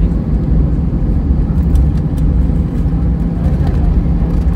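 Cabin noise of an Airbus A320ceo rolling on the ground after landing, heard from a window seat beside the wing-mounted engine: a loud, steady low rumble of the running jet engines and the rolling aircraft, with a steady hum.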